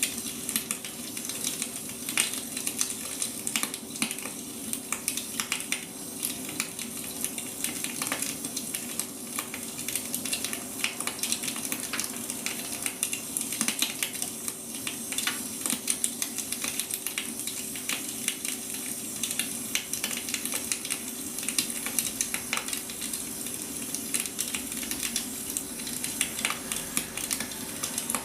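Wood fire burning, crackling with frequent irregular pops over a steady hiss, with a faint steady hum underneath.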